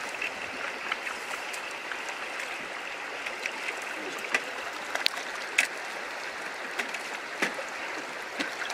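River water flowing steadily over rocks, a constant rushing, with a scattering of short, faint clicks and taps over it.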